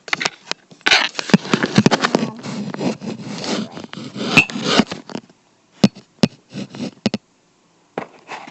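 Scissors stabbing and scraping through a toy's cardboard box: a dense run of scrapes and clicks for about four seconds, then a few separate clicks near the end.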